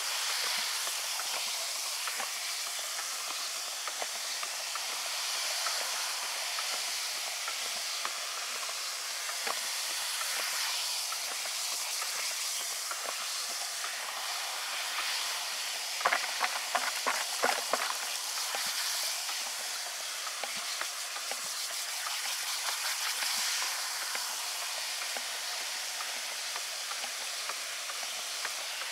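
Foam on a froth-flotation slurry in a plastic bucket hissing steadily as a wand is worked through it. A brief run of sharp clicks comes about halfway through.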